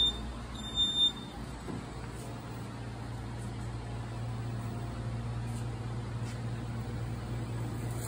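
Robopac Rotoplat 708 turntable stretch wrapper starting its wrap cycle: two high-pitched warning beeps, one right at the start and one about a second in, then the turntable drive running with a steady low hum as the pallet rotates.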